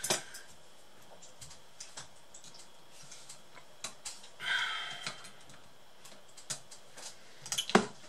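Small scattered clicks and taps of a metal tool and fingers on a laptop's plastic base and mainboard, with a brief scrape about halfway and a quick clatter of plastic clicks near the end as the case is lifted.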